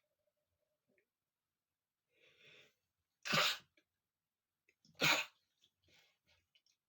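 A man sneezes twice, about a second and a half apart, each sneeze a short, sharp burst.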